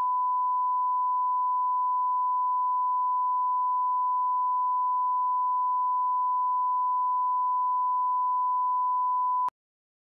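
A 1 kHz line-up test tone playing with SMPTE colour bars: one steady pure beep that cuts off abruptly with a slight click about half a second before the end.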